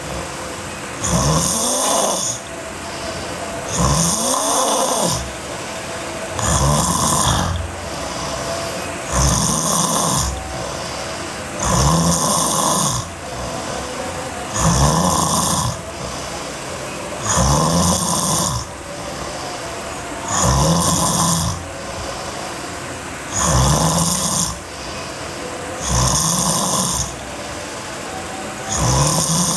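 Sleeping girl snoring heavily, with loud snores coming at an even pace of about one every three seconds.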